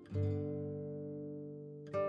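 Soft background music on a plucked string instrument. A chord struck just after the start rings out and slowly fades, and new notes are struck near the end.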